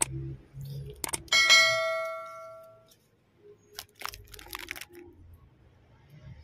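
Subscribe-button animation sound effect: a mouse click, then a single bell ding that rings out and fades over about a second and a half. A few faint clicks and rustles follow.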